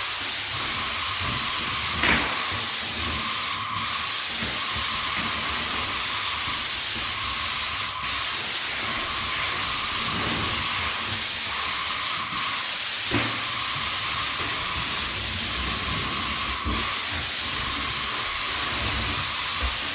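Airless paint spray gun on an extension pole hissing loudly as it sprays a mist coat onto new plaster. The hiss cuts out for a moment about every four seconds as the trigger is released between passes.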